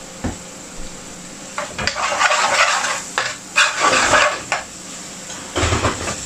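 Metal spoon stirring and scraping thick curry sauce around a stainless steel pan, in a long bout from about a second and a half in and a shorter one near the end, after a few light spoon taps. The sauce sizzles in the pan underneath.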